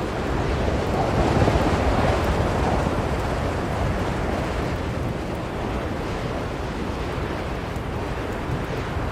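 Blizzard wind blowing as a steady rushing noise, swelling between about one and three seconds in, then easing to an even level.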